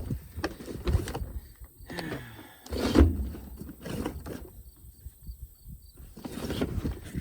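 Gear being handled as an old tackle box is opened and gone through: scattered knocks, clicks and rustling, with one louder thump about three seconds in.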